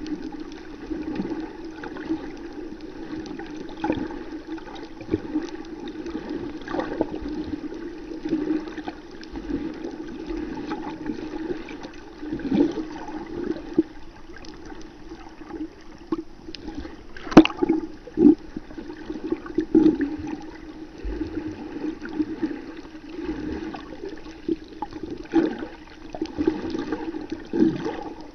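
Muffled underwater noise picked up by a submerged camera: a steady low hum and water noise, with scattered knocks, the sharpest about seventeen seconds in.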